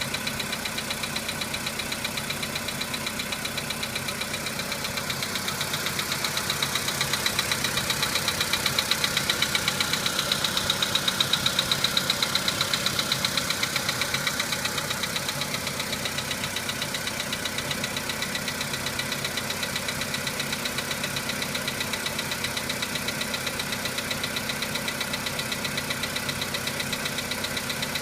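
Volkswagen Polo Sedan engine idling after a cold start with a fast, even knock in time with its running, which grows louder for several seconds midway. The owner asks what it is and says it fades as the engine warms up, so it is a cold-engine knock.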